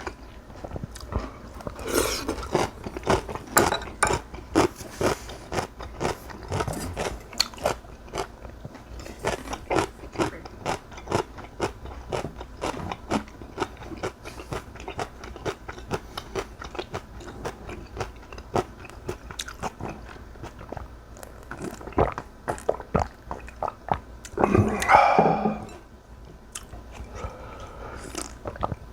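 A person chewing and crunching mouthfuls of food, with many sharp, irregular mouth clicks close to the microphone. A louder, longer mouth sound comes near the end.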